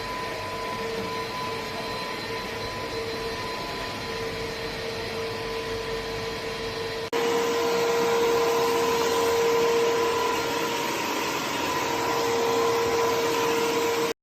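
Dibea DC22 cordless wet-dry vacuum cleaner running steadily, a motor whine over a rushing of air. About seven seconds in it jumps abruptly to a louder level.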